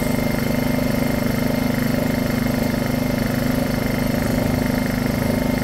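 Honda EU2000i inverter generator's small single-cylinder engine running steadily at an even speed. The machine has a gummed-up carburetor that, by the owner's account, lets it keep running only on choke.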